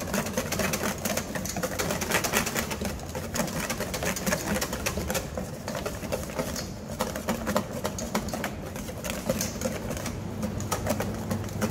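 Wire whisk beating sabayon egg yolks in a stainless steel bowl: fast, rhythmic clicking and scraping of the wires against the steel. The mixture is at the stage of turning pale and thickening over boiling water.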